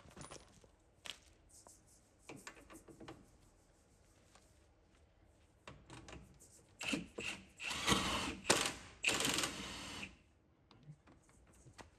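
Plastic cable ties on the ABS sensor wiring being pulled tight: scattered small clicks of handling, then several quick, dense ratcheting zips about seven to ten seconds in.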